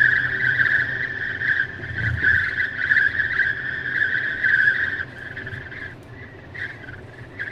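Wind whistling through the passenger window of a Tesla Model X while driving: a steady high-pitched whistle over low road rumble, weakening and coming and going from about five seconds in. The whistle is the sign of a wind leak at the passenger window that needs service.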